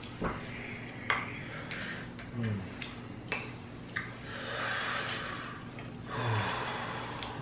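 People breathing hard and sniffing, noses running from the burn of very spicy wings, with two short low groans about two and a half and six seconds in and a few light clicks.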